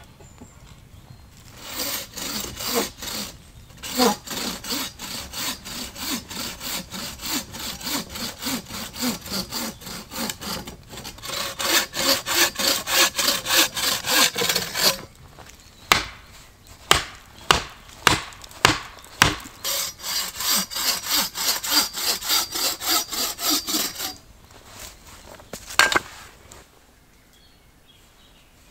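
Hand saw cutting through wood in quick back-and-forth strokes. Midway the sawing breaks off for a few sharp separate knocks, then starts again and stops near the end.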